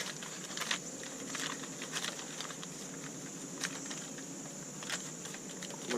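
Light scattered clicks and rustling as an Airchime M-3H train horn is handled and turned over, over a steady high-pitched background drone.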